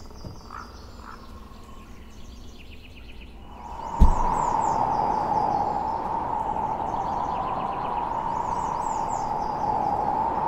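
Birds chirping over a quiet outdoor background. About four seconds in comes a sudden heavy thump, then a loud steady rushing noise with a constant mid-pitched hum that holds to the end.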